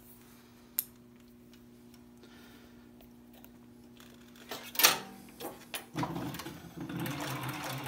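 A faint steady hum with a click just under a second in and a knock near five seconds, then from about six seconds in the SEWPRO 441-PRO cylinder-bed sewing machine running on its servo motor.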